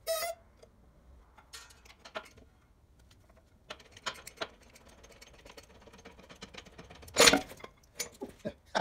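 Scattered metal clicks and knocks as a Bridgeport milling-machine spindle is pressed out of its bearings in a shop press, with one loud bang about seven seconds in.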